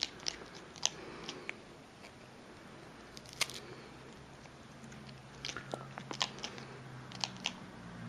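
A parrot biting and chewing at something: irregular sharp clicks and crunches, the loudest about a second in and again after about three seconds, with a quick run of them in the second half.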